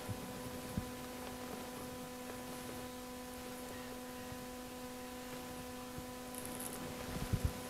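Steady low electrical hum made of several even pitches, with one faint click about a second in and a few soft knocks near the end.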